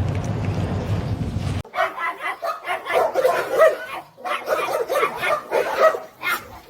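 A dog vocalizing in a quick run of short, pitch-bending yips and barks. Before it, a steady low rumble cuts off suddenly about a second and a half in.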